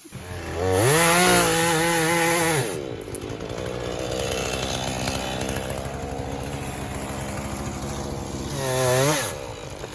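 Two-stroke gas chainsaw revved up to full throttle and held for about two seconds, then dropping back to idle. A second short rev comes near the end, and it settles back to idle.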